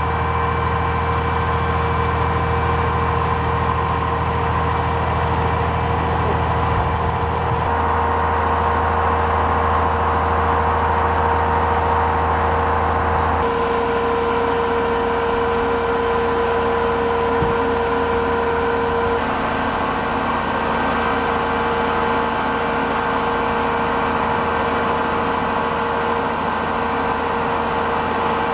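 Truck engines idling, a steady hum with several held tones; the low part of the hum shifts twice.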